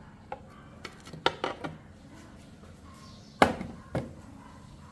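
A cluster of sharp pops and knocks from polystyrene foam under a red-hot iron ball, several in the first second and a half. Two louder pops follow, the loudest about three and a half seconds in and another half a second later.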